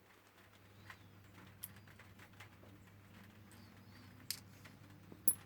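A few scattered small clicks and taps as padlock parts are handled while a pin-tumbler padlock is taken apart, its pins and springs tipped out and sorted. The sharpest click comes near the end.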